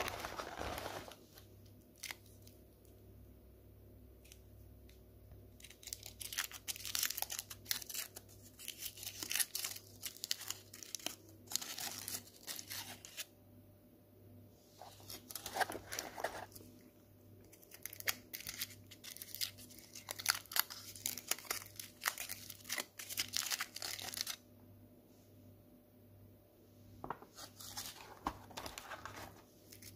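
Foil wrappers on cherry liqueur chocolates crinkling and tearing as they are peeled off by hand. The crackling comes in spells of several seconds with quiet pauses between.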